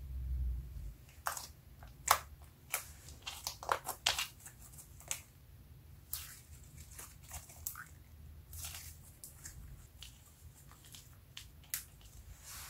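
Hands kneading, stretching and folding glossy slime, giving irregular sharp sticky clicks and pops with short quiet gaps between them. A low rumble sits under the first second, and the clicks thin out after about nine seconds.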